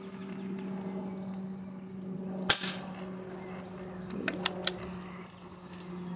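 Air Arms S400 pre-charged pneumatic air rifle firing a single shot through a chronograph: one sharp crack about two and a half seconds in. About two seconds later come three quick, lighter clicks.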